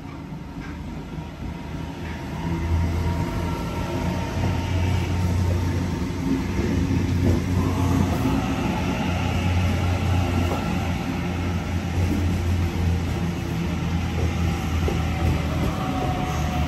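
Sydney Trains Waratah double-deck electric train running in alongside the platform. A steady low hum builds over the first few seconds and then holds, with a traction-motor whine that shifts in pitch.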